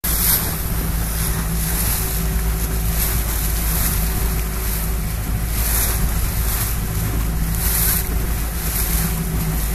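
Wind buffeting the microphone over water rushing and splashing around a boat under way, with hissy gusts every second or two and a faint steady engine hum underneath.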